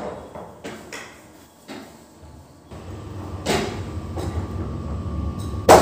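A tipped-over reclining office chair being handled and shifted on a tiled floor: a few plastic clicks and knocks, then a low rolling scrape that builds from about halfway through, ending in a sharp knock, the loudest sound.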